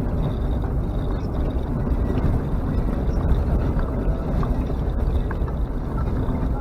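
Off-road vehicle driving, a steady rumble of engine and wheels on the track.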